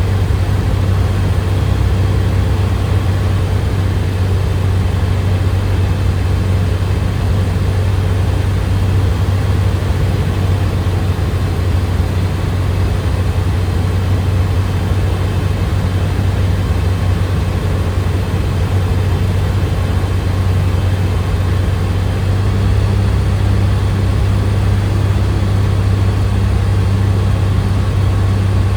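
Steady drone of a Skyranger Swift microlight's engine and propeller on final approach, with a strong low hum under a wash of airflow noise. The engine note shifts slightly about two-thirds of the way through.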